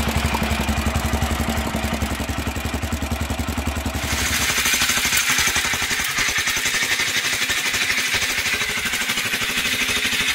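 JAWA 500 OHV's half-litre single-cylinder overhead-valve engine running at a steady idle, a rapid even beat of firing pulses with mechanical clatter. About four seconds in, the sound turns thinner and more clattery.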